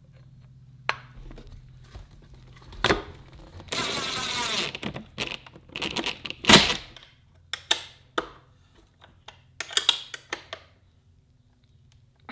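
Metal tools and engine parts clinking and knocking during hand work on a two-stroke dirt-bike engine, with a brief rattling whirr about four seconds in and one louder knock a little later.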